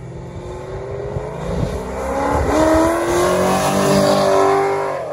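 A 5.3-litre LS V8 accelerating hard in second gear on a 75-shot wet nitrous kit, its pitch climbing steadily for a couple of seconds and then falling sharply near the end. It stumbles as the nitrous hits, which the crew thinks may come from never hooking up the purge solenoid.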